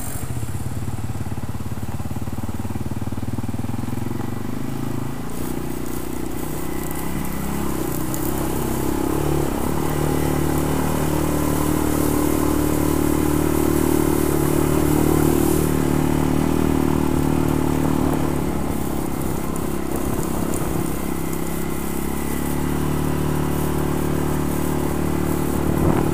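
ATV engine running as the machine is ridden, its note dropping about five seconds in and climbing again a few seconds later, then holding fairly steady.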